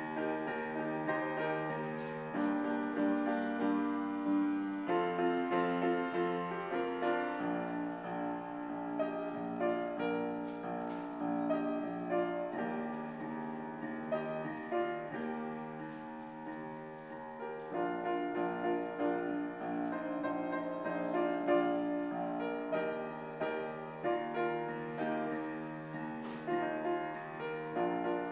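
Solo piano playing a slow piece of held chords.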